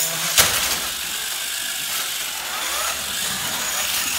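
FRC robot's electric drivetrain running, a steady whir of motors and gearboxes as it drives, with one sharp clack about half a second in.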